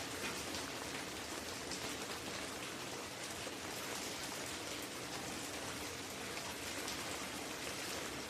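Steady crackling hiss with a faint steady hum underneath.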